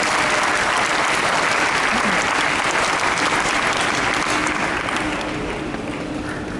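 Audience applauding, dense clapping that thins out and dies down over the last couple of seconds.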